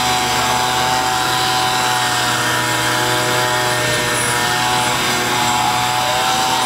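Handheld leaf blower running steadily with an even, high whine, blowing dust and dirt off an elephant's hide.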